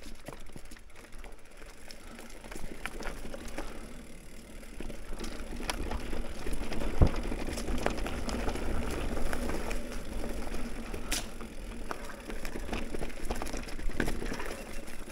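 Mountain bike riding down a dirt trail: tyre noise and rattling from the bike, with a low rumble, scattered clicks and one sharp knock about seven seconds in. It gets louder about five seconds in.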